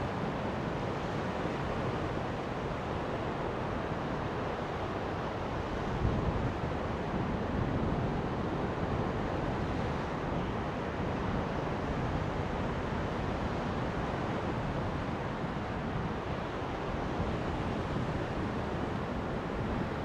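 Steady rush of wind and surf on a beach, with wind rumbling on the microphone.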